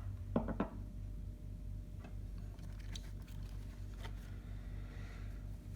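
A few faint light clicks and some soft rustling as small chrome hand tools (socket extension and sockets) are handled, over a steady low hum.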